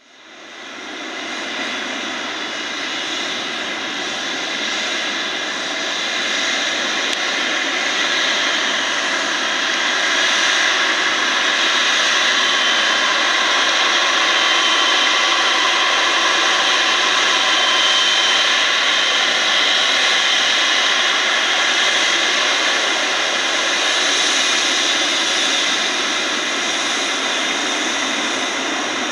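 Boeing 777 turbofan engines running at low taxi power as the airliner rolls along the taxiway after landing. It is a steady jet whine with a thin high tone that stands out most in the middle.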